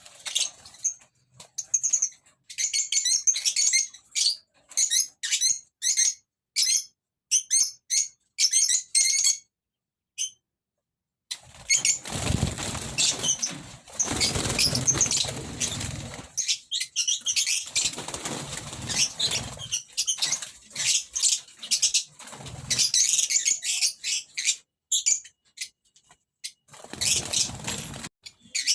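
Small birds in a cage or aviary giving many short, high chirps, with wings flapping and fluttering, heaviest from about twelve to sixteen seconds in.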